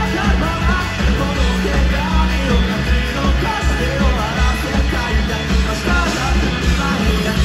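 Rock band playing live at concert volume: drums, bass and guitars with a steady pounding beat.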